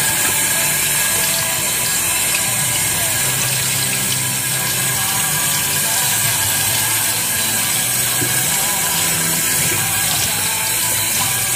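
Kitchen tap running steadily into a stainless-steel sink as a whole raw chicken is rinsed under the stream, over background music.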